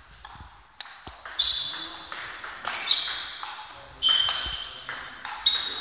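Table tennis rally: the ball clicking sharply off the bats and the table in quick succession, several hits ringing briefly. The rally starts about a second in.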